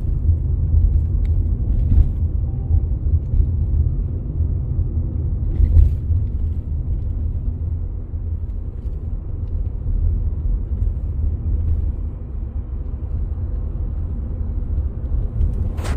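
Volkswagen Virtus GT in motion heard from inside the cabin: a steady low rumble of road and engine noise, with a few faint clicks.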